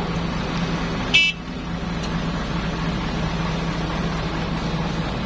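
Excavator's diesel engine running steadily, with one short, high-pitched beep about a second in.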